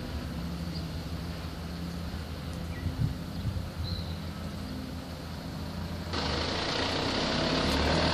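Steady low outdoor rumble with a faint hum; about six seconds in it changes suddenly to a louder hiss.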